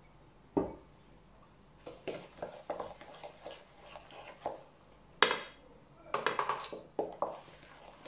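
Wooden spoon stirring thick cake batter in a stainless steel bowl, knocking and scraping against the metal sides in a run of uneven clicks, with the sharpest knock about five seconds in. A single knock comes just over half a second in.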